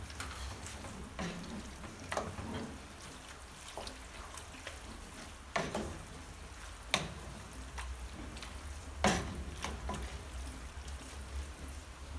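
A wooden spoon stirring fusilli pasta into tomato sauce in an aluminium pot: wet squelching of the pasta, with scattered knocks of the spoon against the pot, the sharpest about five and a half, seven and nine seconds in.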